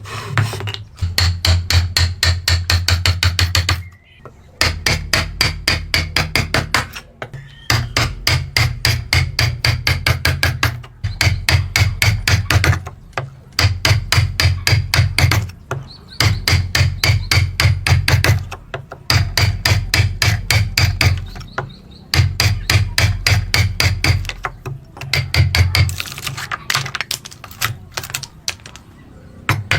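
Fast, repeated hammer blows on wood, about six a second, in runs of two to three seconds with short breaks between them.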